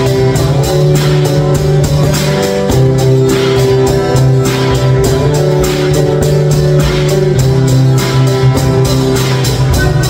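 Two acoustic guitars strumming chords over a drum kit keeping a steady beat, with cymbal hits about four times a second; an instrumental passage with no singing.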